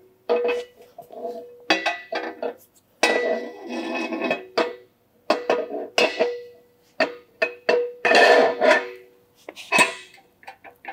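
A run of sharp metal clanks and clinks, some ringing briefly, as a steel axle shaft is slid into a Ford 9-inch rear axle housing and its flange is worked into place at the housing end. Background music plays underneath.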